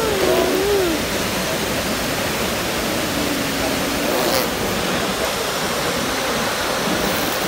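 Waterfall pouring, a steady rushing of water. Faint voices come through it about a second in and again around three to four seconds in.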